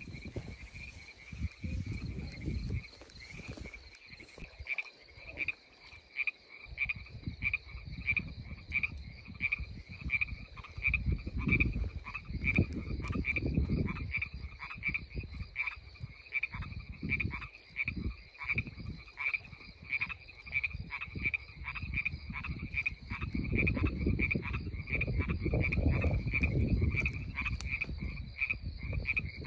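Frogs calling in a steady run of short pulsed calls, about three a second, over a thin steady high tone. Loud low rumbling noise comes and goes underneath.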